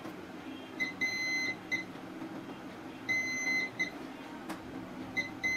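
Multimeter continuity buzzer beeping in short spurts about every two seconds, each a quick blip and a high steady tone of about half a second, as its probe touches parts on a phone motherboard. Each beep signals a near-zero-ohm path, here across the board's buck coils.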